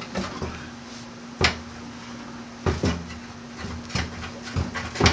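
Irregular knocks and clunks, about half a dozen, from hands working at the fuel tank under a Subaru Impreza wagon, the loudest about one and a half seconds in, over a faint steady low hum.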